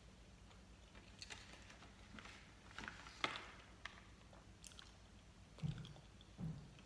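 A person chewing gummy candy with soft, wet mouth clicks at intervals. There are two short low sounds near the end.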